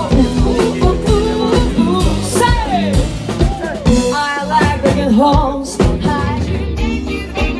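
Live pop band amplified through a PA: a woman singing lead into a microphone over electric guitar, bass guitar and drums.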